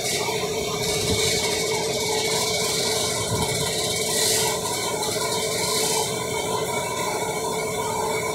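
A steady machine hum, with light rattling and scraping from hands working down beside the radiator in a car's engine bay.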